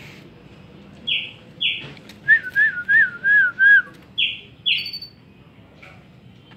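Pet bird calling: two quick downward-sweeping notes, then a run of five wavering notes, then two more downward-sweeping notes.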